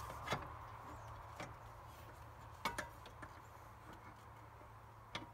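Fan clutch and fan blade assembly knocking lightly against parts in the engine bay as it is worked down and lined up on the water pump pulley: four short separate clicks and knocks, the loudest about two and a half seconds in.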